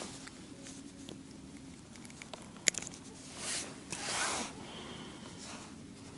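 Close-up handling sounds as hands unhook a small fish and bait an ice-fishing jig: faint fumbling and fabric rustling, one sharp click a little past halfway, and two short rustles soon after.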